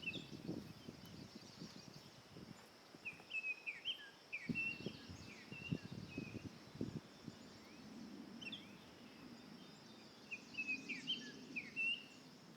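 Forest birds chirping in two bursts of short, quick phrases over a steady faint high insect hum, with irregular low knocks and rustling nearby.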